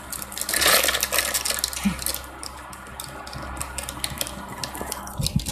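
Plastic packaging around a squishy toy crinkling as it is gripped and handled: a rapid, irregular crackle of small clicks, loudest about a second in.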